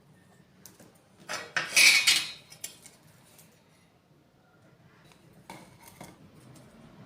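A brief burst of metallic clattering, like metal parts or tools being handled and set down, starting about a second in. A few light knocks follow near the end.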